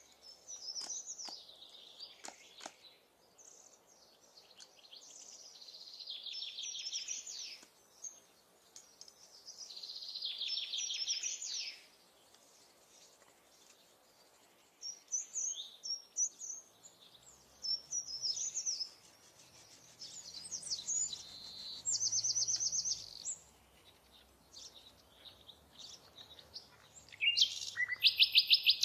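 Songbirds singing: a high phrase of rapid trilled notes every few seconds, with a few faint clicks early and a faint low hum in the second half.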